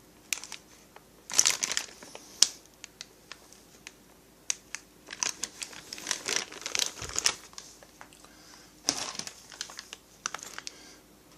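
Packaging crinkling and rustling in irregular bursts, with sharp clicks of small parts being handled, as parts are taken out of a kit box.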